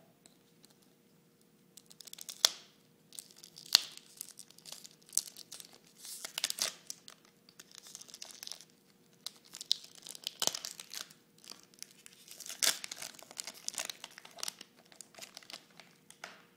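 Wrapper of a 1993 Topps Football Series 2 trading card pack being torn open and crinkled by hand. It comes in irregular bursts of crackling with a few sharp snaps, starting about two seconds in.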